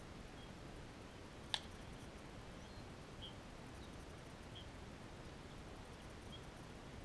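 A single sharp crack of a bat hitting a ball, about a second and a half in, heard from a distance over faint background noise.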